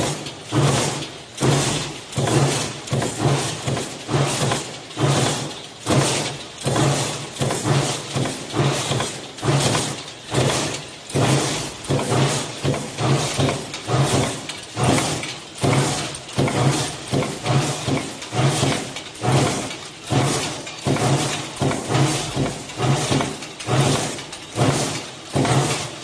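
Power press running a progressive stamping die, the ram striking sheet steel in a steady rhythm of a little under one stroke a second as it forms mortise lock parts.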